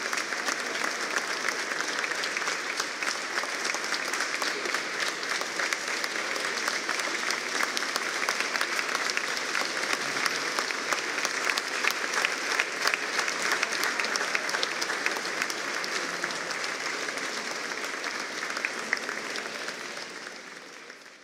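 Audience applauding steadily, many hands clapping together, fading out near the end.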